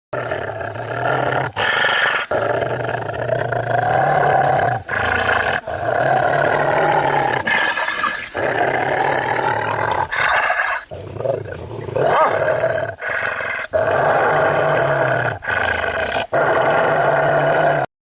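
A dog growling in long, sustained growls, broken by brief gaps every second or two.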